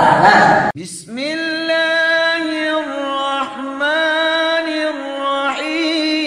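Unaccompanied sung vocal, one voice holding long notes with slow pitch bends and short breaks between phrases. Just before it, about a second in, the voice of the preceding lecture clip cuts off abruptly.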